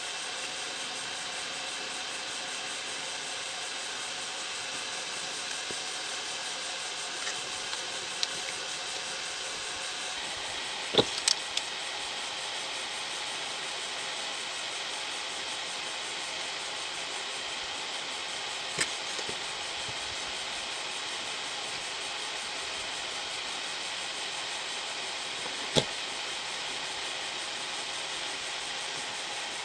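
A few sharp clicks and knocks of plastic parts and a screwdriver being handled, over a steady hiss. There is a quick cluster of them about eleven seconds in, and single ones near twenty and twenty-six seconds.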